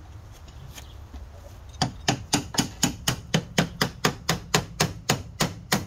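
Hand hammer rapidly striking a rusted steel fitting on a PD3751 Silversides bus's body, at about four blows a second, starting about two seconds in. The blows are meant to drive out a stud rusted bigger than its hole.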